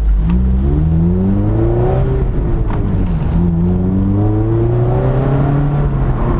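Mazda MX-5 ND's four-cylinder engine through an Ulter-Sport stainless centre-exit exhaust with electric bypass valve, accelerating: its pitch climbs, falls briefly about two and a half seconds in, climbs again and then holds steady. Heard from the open-top cockpit.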